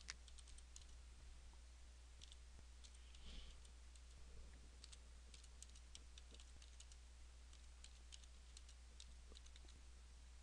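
Faint, irregular tapping of computer keyboard keys during typing, over a low steady hum.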